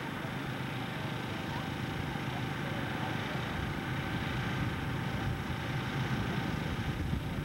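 Small tractor engines running at the start line of a dirt drag strip, a steady mechanical noise with a low rumble that grows from about halfway in.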